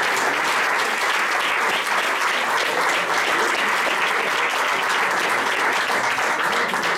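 Audience applauding, a dense, steady round of clapping.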